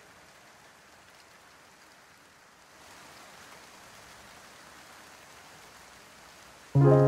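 Steady rain falling: an even hiss that grows a little louder about three seconds in. Near the end, loud music with held chords cuts in abruptly.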